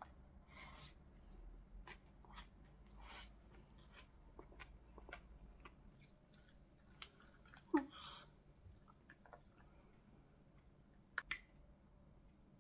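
Quiet eating sounds: chewing, with scattered clicks of chopsticks against a plastic takeout container; the sharpest clicks come about seven seconds in and again twice near the end.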